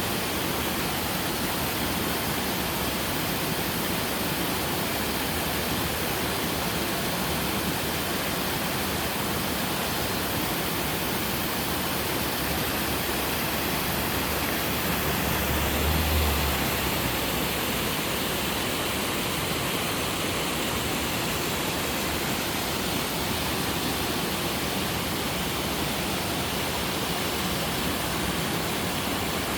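Waterfall pouring steadily in a mountain valley: an even rush of falling water, with a brief low rumble about halfway through.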